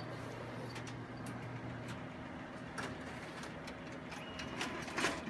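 Office copier running a copy: a steady motor hum with scattered clicks and clacks as the sheet is fed through, the loudest click near the end.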